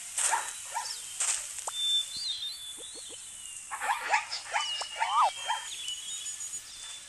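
A string of short animal calls: yelps and squeals, one call swinging quickly up and down in pitch about five seconds in, and thin high chirping whistles.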